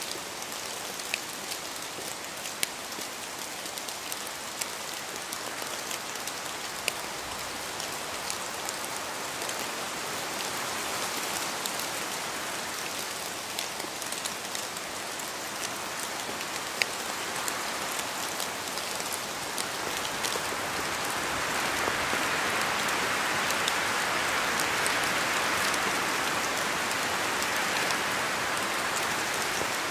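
Steady rain falling, an even hiss with sharp individual drops pattering on a surface, growing heavier about two-thirds of the way through.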